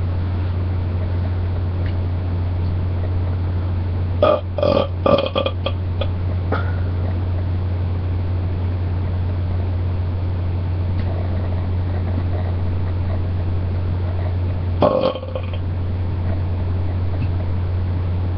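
Person burping: a quick run of short burps about four seconds in, and another burp near the end, over a steady low hum.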